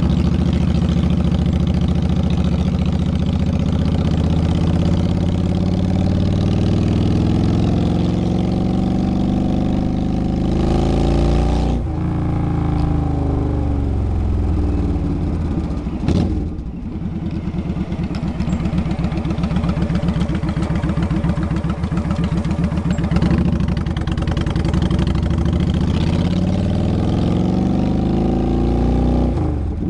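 Motorcycle engine running on the move, its note climbing as it accelerates and dropping sharply at a gear change about twelve seconds in. It eases off to a low note a little past halfway, then climbs again until another drop near the end.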